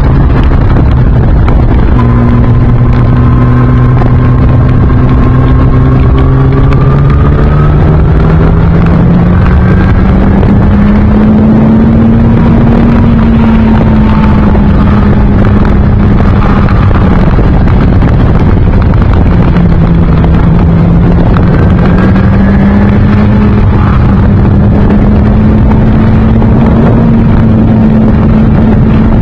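Yamaha R1 (RN19) inline-four motorcycle engine running on the road through an Akrapovic silencer with no catalytic converter, under loud wind rush on the microphone. It drops in pitch at a gear change about two seconds in, then pulls steadily higher. It eases off and dips again around two-thirds of the way through, then climbs back and holds a steady pitch near the end.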